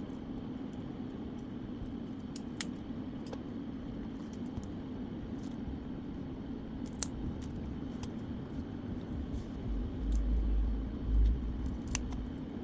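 Steady low hum of workbench equipment with scattered light clicks of small metal tools on the phone during iPhone display IC removal. A louder low rumble comes about ten seconds in.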